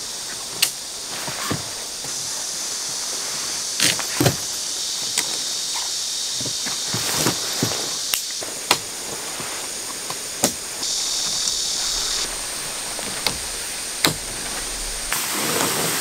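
A tent being pitched on a wooden deck: scattered sharp clicks and knocks from tent poles and fittings being handled, with footsteps on the boards, over a steady high hiss.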